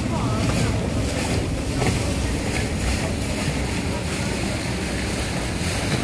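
Water bus travelling along a canal: the steady rumble of its engine under the rush of water splashing along the hull, with wind buffeting the microphone.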